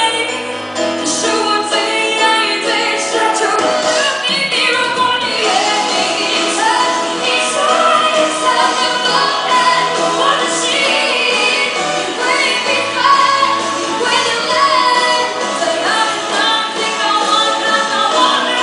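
Music: a Mandarin pop ballad with singing over instrumental backing.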